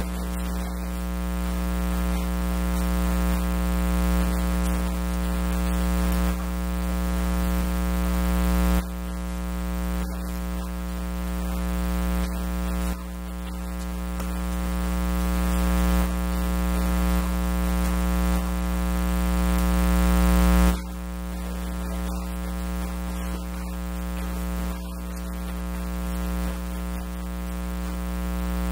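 Loud, steady electrical buzz with many stacked tones over a hiss, covering everything else. It swells slowly and drops back sharply every couple of seconds, and no speech comes through it. This is a mains hum or ground-loop fault in the recording.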